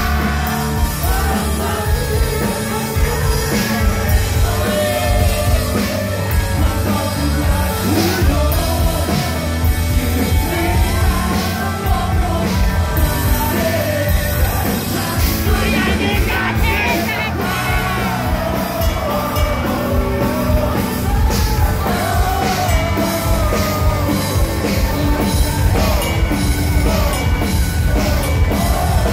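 Live rock band playing through a loud PA: electric guitars, bass and drums with a male lead singer singing into a microphone.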